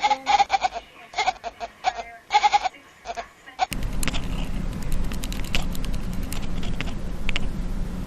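A cat giving a quick run of about six short, pitched meows. About three and a half seconds in, the sound cuts to a steady low hum with scattered faint clicks.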